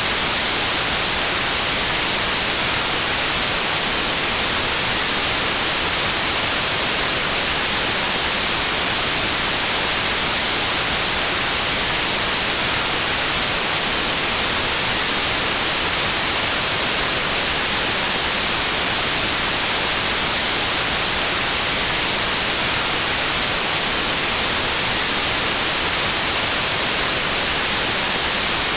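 Steady white noise: an even, unbroken hiss, brightest in the treble, with no changes or events.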